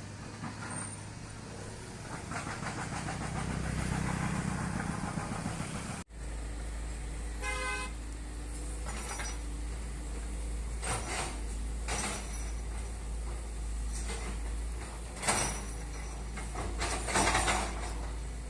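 Road traffic: a vehicle rumbles past, then after a cut a steady low engine-like hum, a short horn toot and several sharp knocks.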